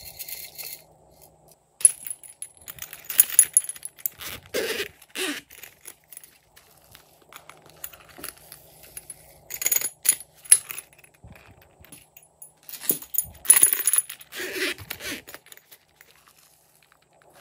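Sequins and small plastic pieces rattling and clinking as they are shaken out of a zippered coin purse, along with the purse's metal ring and zipper jingling. It comes in three clattering bursts: about two seconds in, near the middle, and a few seconds before the end.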